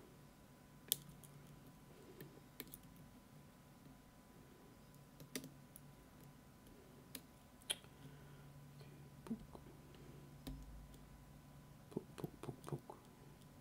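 Faint, sparse metallic clicks of a lock pick and tensioner working the pins and sliders of a Fontaine pump lock, single ticks a second or two apart, then a quick run of several near the end.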